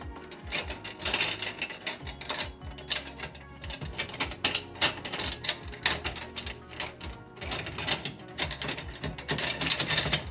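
Ratchet wrench clicking in quick runs as nuts and bolts are tightened while assembling a chainsaw mill.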